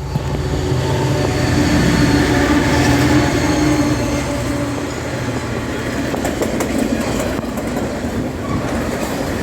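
Diesel freight locomotive passing close at full power in notch 8, its engine loud and steady, then the train's wagons rolling by with a clickety-clack over the rail joints in the second half.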